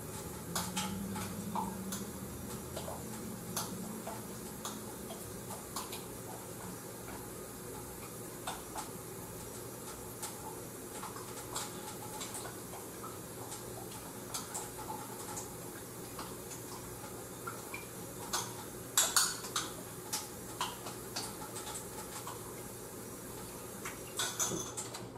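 A spoon clinking and scraping against a glass measuring cup as a flour-and-water gravy mix is stirred to break up the lumps. The light, irregular clinks go on throughout, with a few louder ones about three-quarters of the way in and again just before the end.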